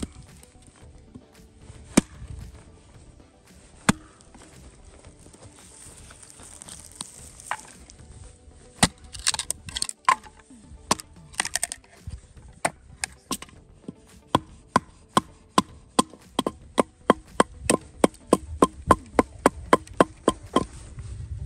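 Axe chopping into firewood logs, cutting notches in them: a few separate blows at first, then from about nine seconds in a steady run of sharp chops, about two a second toward the end.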